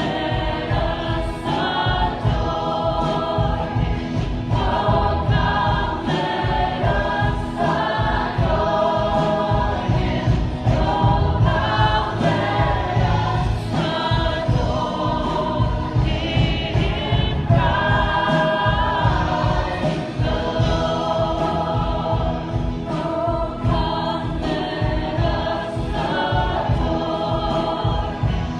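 Church worship music: a group of voices singing a song together over band accompaniment with a steady beat.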